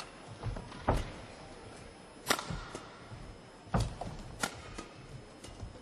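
Badminton rally: rackets striking the feather shuttlecock with sharp cracks, about four loud hits a second or so apart with lighter taps between, and a brief squeak of court shoes about two and a half seconds in.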